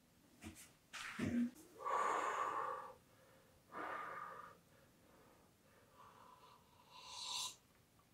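A person slurping freshly brewed pour-over coffee: two noisy sips, about two seconds and four seconds in, then a breathy exhale near the end.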